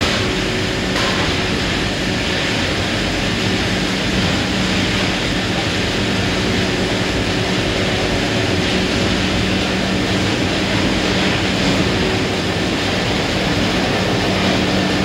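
Wood pellet production line running while pressing pellets. The pellet mill, its large electric drive motor and the feed augers make a steady, loud machine noise with a constant hum.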